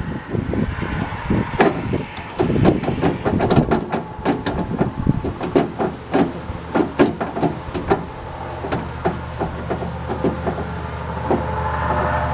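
Rapid small clicks, knocks and rattles of metal parts being handled inside a pickup truck's door, as the door handle's linkage rods are hooked back up. About halfway through a steady low hum comes in and grows louder toward the end.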